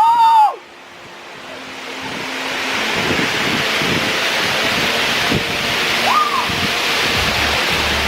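Waterfall water rushing as a steady hiss that swells over the first few seconds and then holds. A short, loud, high call that rises and falls in pitch opens it, and a fainter one comes about six seconds in.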